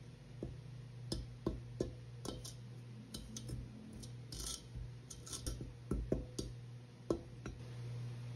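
Metal dough hook stirred by hand through dry flour in a stainless steel mixing bowl, clicking and tapping irregularly against the bowl. A steady low hum runs underneath.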